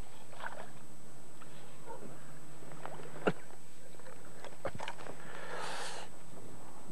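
Handling of a freshly caught roach and the fishing tackle: a few sharp clicks and a short rustle near the end, over a steady low hum.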